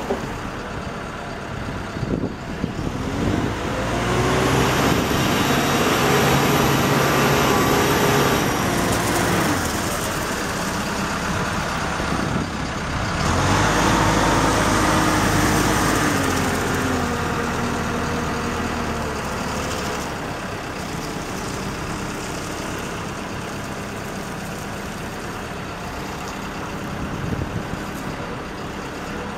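Caterpillar TL1055 telehandler's diesel engine running as the machine drives, revving up twice and holding for a few seconds each time before dropping back to a lower speed.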